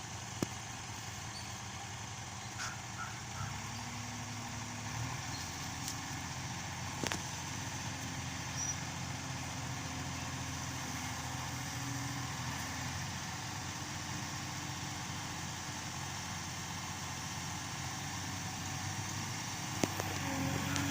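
Backhoe loader's diesel engine running steadily. Its note steps up a few seconds in, with a few faint clicks and knocks along the way.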